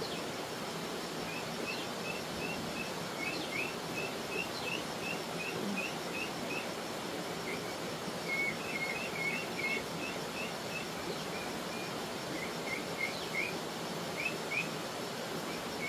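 A bird calling in long runs of short, quick chirps, about three a second, with a pause in the middle, over a steady outdoor hiss.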